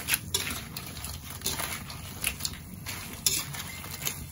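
A spatula scraping and knocking against a metal wok as whole crabs in sauce are tossed and stirred, with their shells clattering. The strokes come at irregular moments, about half a dozen, over a low steady hum.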